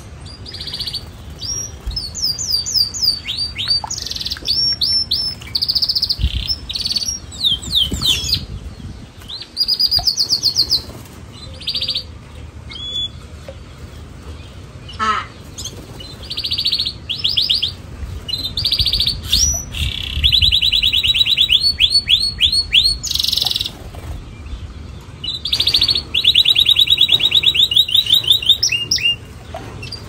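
Domestic canaries singing: long, fast rolling trills of rapidly repeated notes, phrase after phrase, with the longest rolls in the middle and over the last third.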